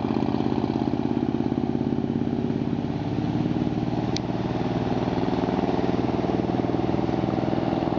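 Inboard engine of a classic wooden speedboat running hard as the boat pulls away from the dock and speeds off, a steady, powerful drone. A brief high chirp sounds about four seconds in.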